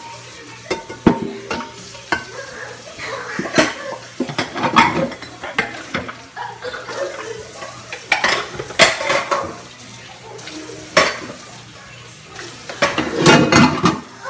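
Dishes and cutlery clinking and clattering as they are handled in washing up, with irregular knocks; the loudest clatters come about two-thirds of the way in and near the end.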